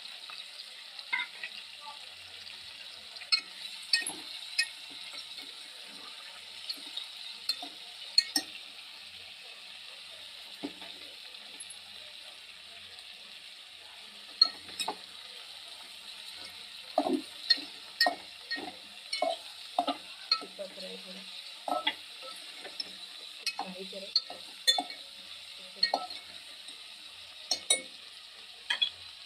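Chicken pieces frying in hot mustard oil in a metal pot, a steady sizzle, with a spoon scraping and clinking against the pot as the meat is stirred; the knocks come thickest about two-thirds of the way through.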